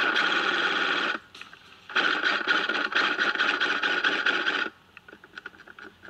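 FN F2000 airsoft electric rifle firing full-auto bursts, a fast mechanical rattle. There is one burst of about a second, then a longer one of nearly three seconds, followed by a few faint clicks.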